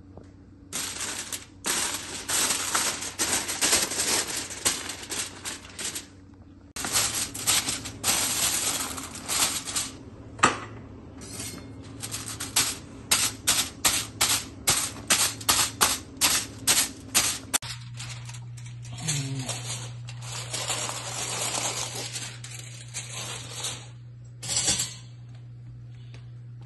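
Aluminium foil crinkling and crackling as a sheet is spread and pressed down over a foil tray, with a stretch of quick, regular crimps, about two a second, around the middle.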